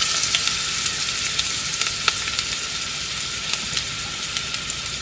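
Minced garlic frying in hot olive oil and butter in a large pot: a steady sizzle with a few faint pops.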